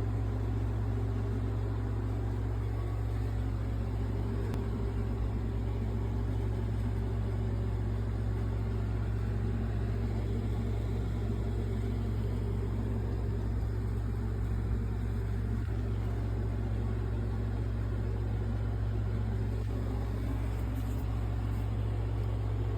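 A steady low hum with a faint noisy hiss above it, unchanging throughout.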